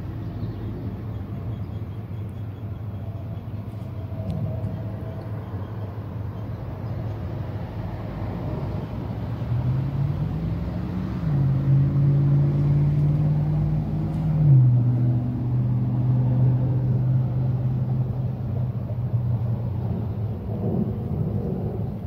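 2006 Mercury Grand Marquis V8 running in the engine bay with a steady low rumble, while the engine is misfiring on cylinder 7 (code P0307). About ten seconds in a hum rises in pitch, holds, and steps back down about four seconds later.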